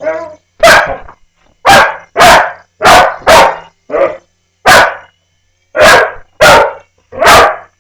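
A dog barking loudly and repeatedly, about ten sharp barks in quick succession with short gaps between them.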